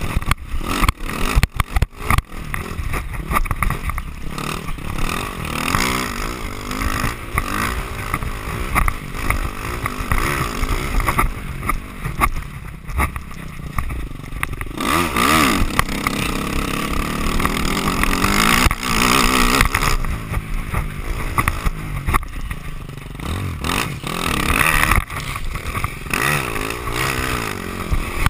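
Dirt bike engine running close to the microphone, revving up and down as the bike rides a rough, sandy trail. Sharp knocks and rattles come in the first couple of seconds.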